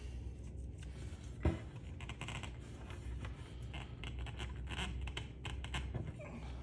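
Scratching and scraping of ceiling fan parts being handled and pried at during teardown, with one sharp knock about a second and a half in. A steady low hum runs underneath.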